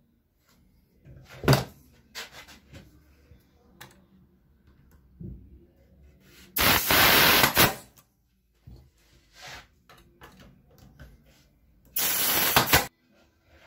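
A black handheld tool pressed onto the corner of a small wooden piece gives two loud rushing bursts of about a second each, one near the middle and one near the end. A single sharp knock and light clicks of the wood being handled come before them.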